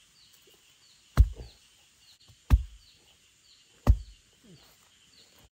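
Bamboo being chopped for firewood with a blade: three heavy chopping blows about 1.3 seconds apart, each a sharp strike with a low thud. A faint high chirp repeats in the background, and the sound cuts off just before the end.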